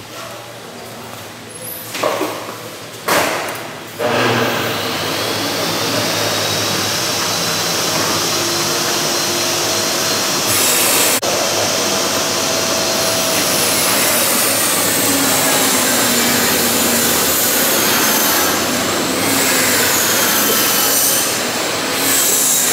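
Two sharp knocks, then a power tool starts and runs steadily on wood for the rest of the time, loud and even with faint shifts in its whine.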